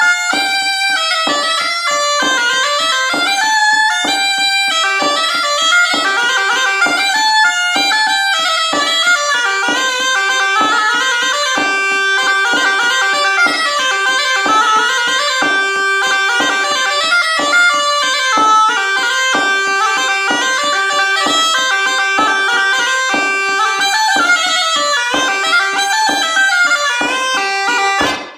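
Cabrette, the bellows-blown bagpipe of Auvergne, playing an ornamented bourrée dance tune as a quick, continuous melody. The playing stops abruptly at the very end.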